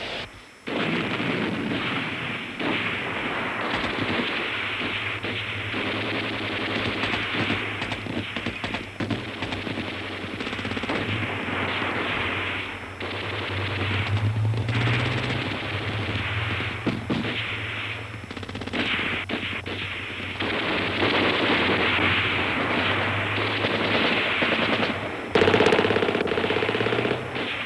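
Machine guns firing long, rapid volleys with scattered single shots, over a low steady drone. The firing is briefly louder near the end.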